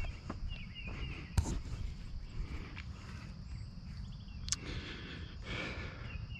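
Outdoor ambience with birds chirping, a steady high insect drone and footsteps on grass, broken by two sharp clicks about a second and a half and four and a half seconds in; the helicopter's motor is not running.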